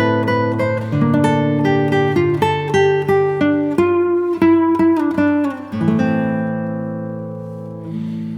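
Background music: a guitar, likely acoustic, plucking a melody over held bass notes, with a chord left ringing and fading about six seconds in before new notes start near the end.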